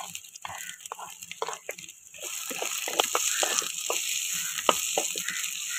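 Chopped onions sizzling in hot groundnut oil in a clay pot, with a wooden spatula scraping and knocking against the pot as they are pushed in and stirred. The sizzle grows louder about two seconds in.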